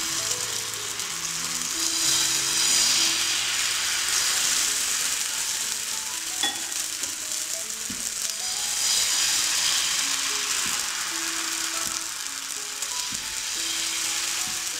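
Thin wheat-flour (atta) dosa batter sizzling on a hot oiled pan, a steady hiss that swells twice as more batter is ladled into the gaps.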